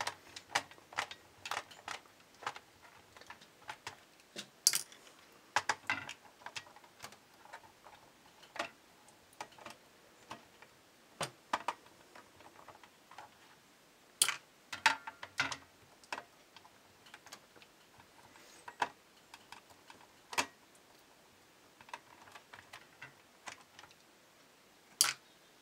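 Screws being turned out of an adding machine's circuit board and plastic case with a small hand screwdriver: scattered, irregular light clicks and ticks of the tool on the screw heads, with a few sharper clicks among them.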